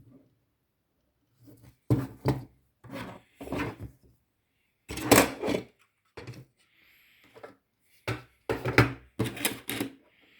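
Hard parts being handled on a work surface: a series of short rubbing and scraping knocks, each under a second, with irregular gaps between them.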